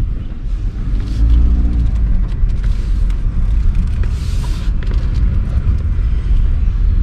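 Low rumble of a van driving slowly, heard from inside the cab, with scattered light ticks and a brief hiss about four seconds in.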